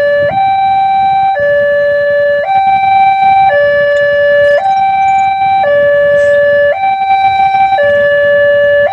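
Railway level-crossing warning siren sounding loud and steady, alternating between a higher and a lower pitch about once a second in a hi-lo pattern, the alarm that a train is approaching the crossing.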